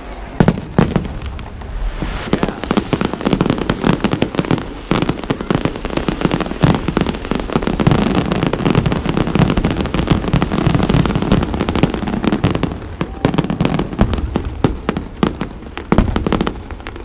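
Aerial fireworks display going off: a dense, continuous run of bangs, pops and crackles, with no let-up.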